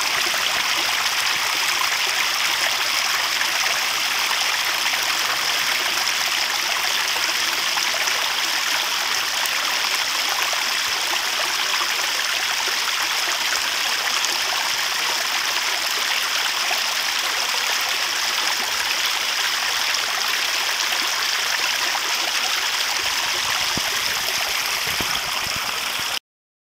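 Water pouring steadily down a small stone-lined garden pond waterfall and splashing into the pond, an even, unchanging rush that cuts off abruptly near the end.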